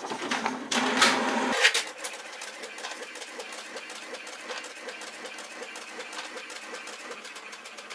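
Paper rustling for about the first second and a half, then an HP all-in-one printer's scanner carriage motor running in a steady, rapid, even buzz as the scan bar travels under the glass copying the sheet.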